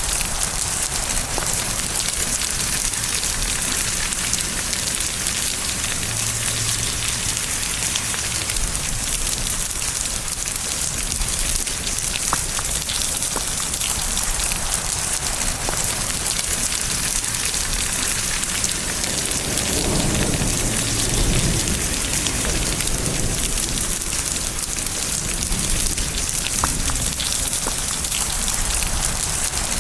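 Steady heavy rain falling on surfaces, a dense even patter. About two-thirds of the way through, a low rumble of thunder swells for a couple of seconds and then fades back under the rain.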